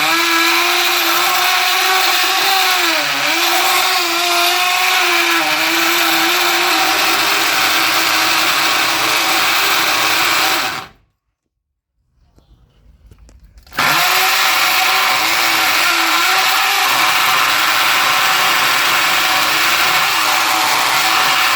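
Vonder electric drill boring into concrete, its motor whine wavering in pitch as the bit takes load. It stops suddenly about halfway through, stays quiet for a few seconds, then starts up again at full speed.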